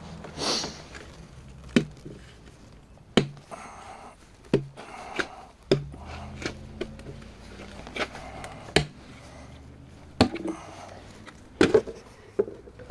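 Sharp plastic snaps and knocks, about a dozen at uneven intervals, as the lid of a five-gallon plastic oil pail is pried off and its tabs are snapped loose.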